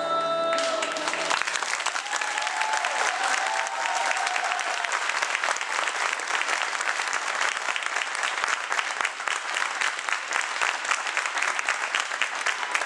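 Audience applauding, a dense steady mass of hand claps that sets in as the music ends about a second in.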